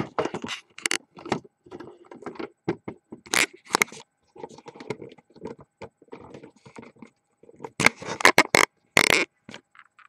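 Handling noise from a camera being picked up and set back on its tripod: irregular knocks, scrapes and rubbing close to the microphone, with a louder cluster of bumps about eight to nine seconds in.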